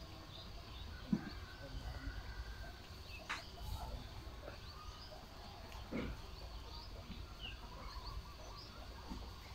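Scattered small-bird chirps over a steady low rumble. Two brief knocks come through, about a second in and again about six seconds in, the first the loudest.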